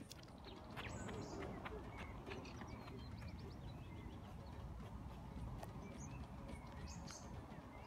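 Birds chirping in short scattered calls, with a quick run of clipped notes about two and a half seconds in, over a steady low rumble.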